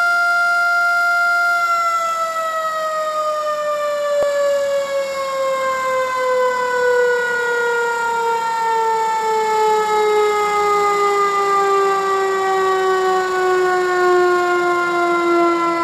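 Industrial air-raid siren sounding a loud wail. It holds a steady high pitch for the first couple of seconds, then slides slowly and evenly down in pitch as it winds down.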